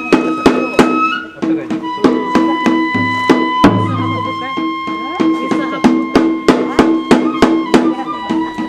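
Kagura music: a transverse bamboo flute holding long high notes, moving to a new note about a second in, over a quick, steady beat of drum strikes.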